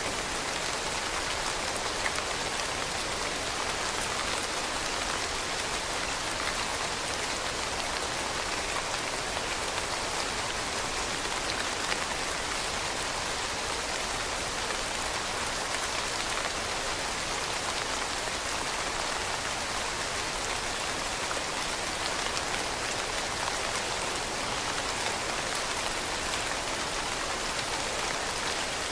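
Steady rain falling on leaves, a dense even hiss of countless small drop impacts.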